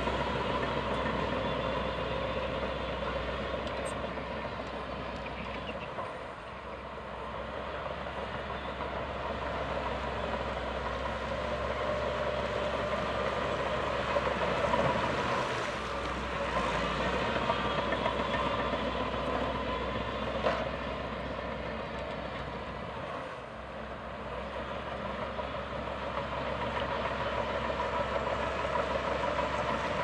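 Heavy diesel earthmoving machinery running steadily under work, a continuous engine drone with a few short dips in level.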